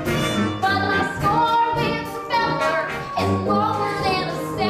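A woman singing a musical-theatre number over instrumental accompaniment.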